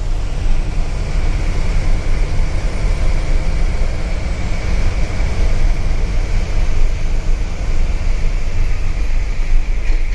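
Coach bus driving on a rain-soaked highway, heard from inside the cabin: a steady low engine and road rumble with a hiss of tyres on the wet road.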